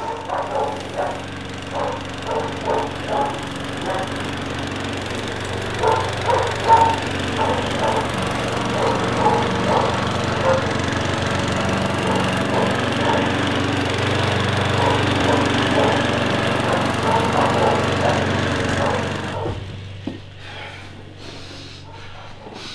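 Lawn mower engine running steadily with a dog barking over it again and again. Both cut off abruptly about nineteen seconds in, leaving a quieter hum.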